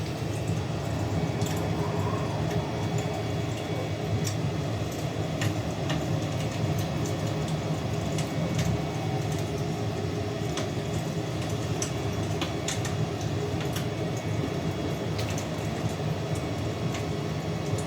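Fire crackling, with irregular sharp pops and snaps over a steady low rumble.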